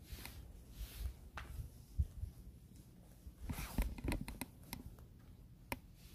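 Light rustling and scattered clicks, like something being handled, with a cluster of them a little past halfway, over a low rumble.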